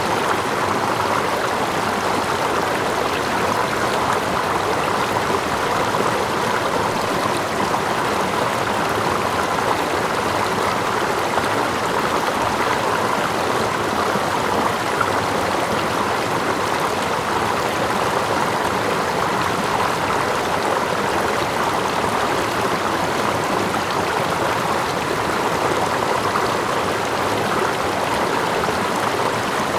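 Steady rushing of stream water, layered with gentle water lapping and a small waterfall further off, even and unchanging throughout.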